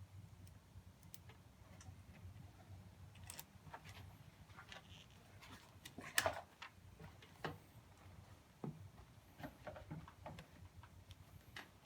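Faint, scattered clicks and taps of metal hand tools working at battery terminal bolts and nuts, with one louder knock about six seconds in, over a low hum.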